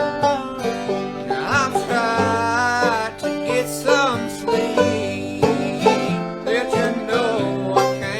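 Bluegrass string band playing, with banjo and guitar.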